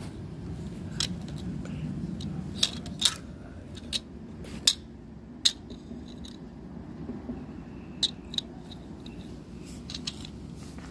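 Plastic Lego bricks being handled, with about eight sharp, separate clicks and taps of the pieces over a low rumble of handling noise.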